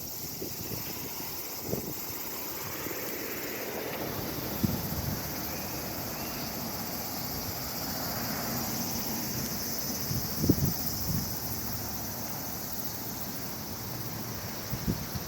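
Strong wind buffeting the microphone in a few short low gusts over a steady outdoor background of distant traffic noise.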